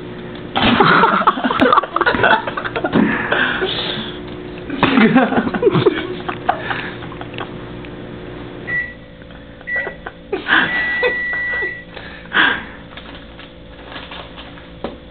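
Microwave oven running with a steady mains hum, which stops partway through, followed by its end-of-cycle beeps: two short beeps and then a longer one. Louder bursts of noise come and go over the hum in the first half.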